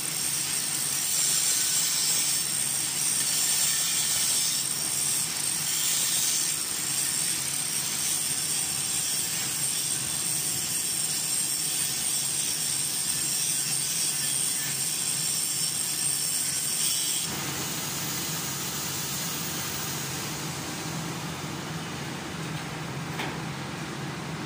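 TIG welding arc, a steady hiss that cuts off suddenly about seventeen seconds in, leaving a quieter steady shop hum.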